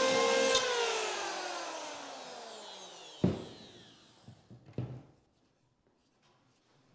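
An electric power tool trimming a pine jamb extension runs briefly, then is switched off and winds down, its whine falling in pitch over about three seconds. A sharp knock comes about three seconds in, followed by a few lighter wooden knocks.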